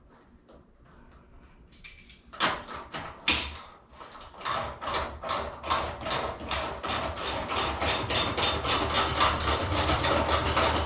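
Hand ratchet wrench clicking rapidly and steadily as a bolt is run down, after a few separate metal knocks about two to three seconds in.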